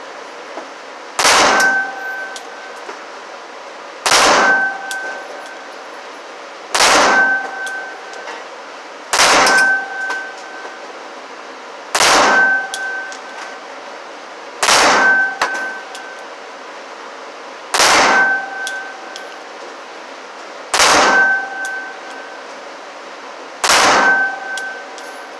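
FN Five-seven pistol firing 5.7×28mm rounds in an indoor range booth: nine single shots, slow and evenly paced about three seconds apart. Each shot echoes briefly and is followed by a short ringing tone.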